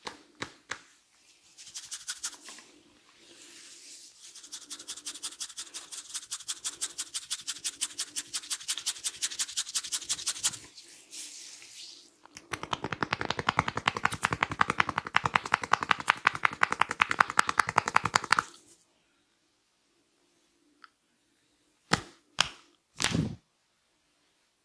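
A barber's hands working a head: a fast, scratchy rhythmic rubbing through the hair, then about halfway in a louder, fast run of slapping taps lasting about six seconds. A few short sharp clicks follow near the end.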